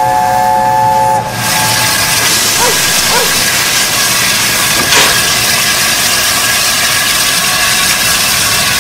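Steam locomotive sound of a model LNER A4 Mallard: a three-note chime whistle holds until about a second in, then a steady loud hiss of escaping steam carries on, with a brief click about five seconds in.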